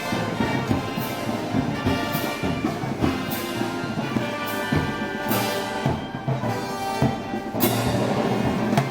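Brass band playing festival music: sustained brass chords over drum beats, with cymbal crashes about once a second.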